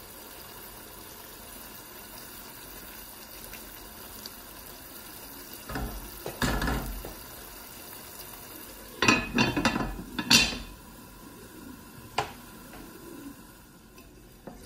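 A pot of stew simmering with a soft steady hiss. Then a spatula and the pot's lid knock and scrape against the pot, with a cluster of loud clattering knocks about nine to ten seconds in and one more sharp knock about twelve seconds in.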